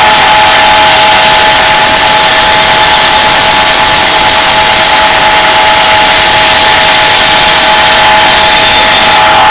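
Belt grinder running at a steady whine, with the thin steel blade of a Cold Steel Latin machete held against the moving belt and giving a grinding hiss. The first passes are taking off the machete's black coating before the edge is reworked.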